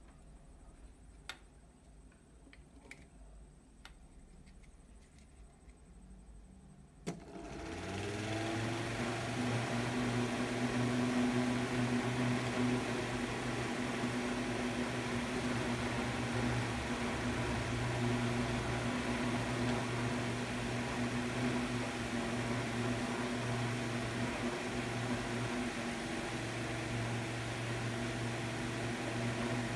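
Small battery-powered electric fan with a five-blade plastic rotor: after a sharp click about seven seconds in it spins up within a second and then runs steadily, a low motor hum under a rush of air.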